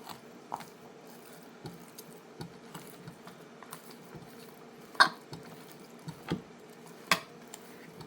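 A knife working raw chicken meat off the carcass bone gives soft wet squishes and scrapes. Sharp clicks come about five and seven seconds in.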